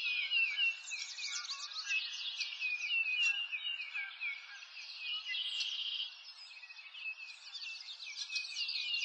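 Many small birds chirping and twittering together, a dense run of quick overlapping calls that thins briefly about two thirds of the way through.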